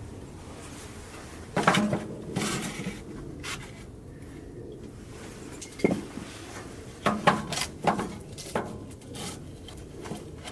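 Camp cookware and utensils being handled: knocks and clatter of metal pots, pans and cutlery in a few short bursts, the busiest run two-thirds of the way through.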